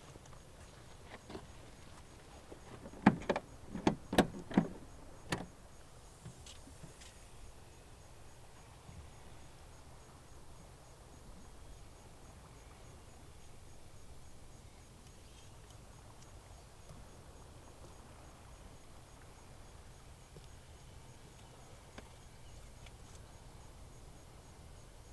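A quick run of about six sharp knocks and clicks on a car's body, about three to five seconds in, then only a low, steady background hiss.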